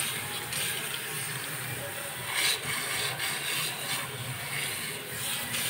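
Water spraying steadily from a salon basin's handheld shower head, rinsing hair into the wash basin.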